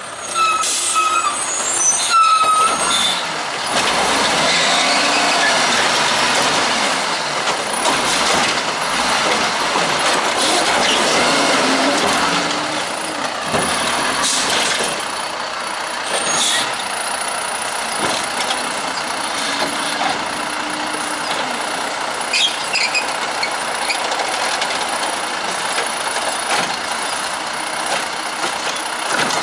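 WhiteGMC Xpeditor automated side-loader garbage truck with an Amrep body pulling up to the curb, with a brake squeal and air-brake sounds near the start. It then runs its diesel engine and hydraulics as the side arm reaches out, grips a cart and lifts it.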